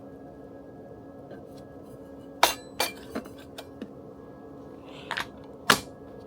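Glassware and dishes clinking as they are handled: a run of sharp clinks and knocks, the loudest two and a half and five and three-quarter seconds in, over a steady low hum.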